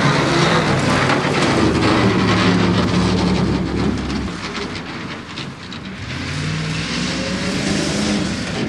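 Ford pickup truck's engine revving hard and rising and falling in pitch as the truck power-slides through a muddy field, its spinning wheels throwing up a spattering hiss of mud. The engine fades about halfway through and builds again near the end.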